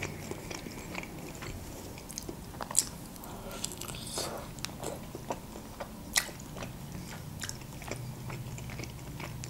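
Mouth sounds of eating a Georgian khinkali dumpling: a bite into the soft dough about four seconds in, then chewing, with scattered small wet clicks.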